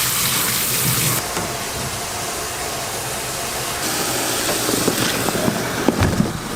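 Pajeon frying in oil on a hot griddle: a steady sizzle, with a few short knocks of utensils near the end.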